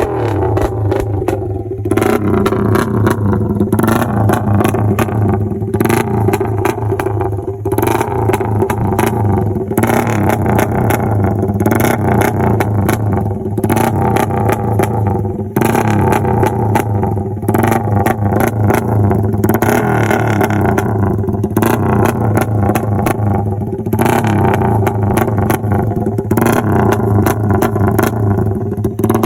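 Suzuki Raider 150 Fi's single-cylinder, fuel-injected engine running loud and steady on an NK aftermarket ECU, with frequent short sharp cracks throughout.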